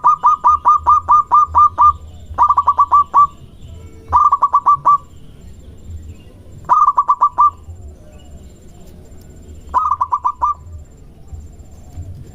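Zebra dove (perkutut) calling in bursts of quick staccato coos. The first run lasts about two seconds, and four shorter runs follow a second or two apart.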